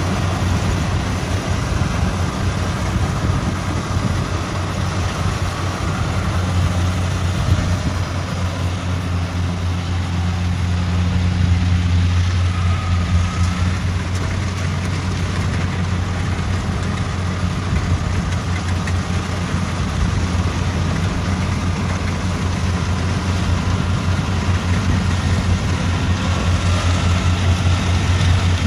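Crawler rice combine harvester's diesel engine running steadily while harvesting, a constant low drone.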